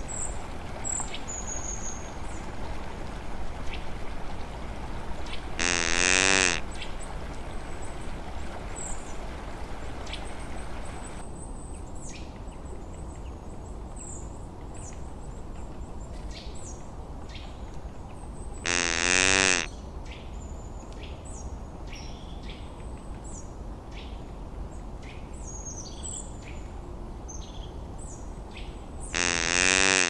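Natural outdoor ambience: small birds chirping over a steady low rush. Three times, about ten to thirteen seconds apart, a loud animal call rings out for about a second, wavering in pitch.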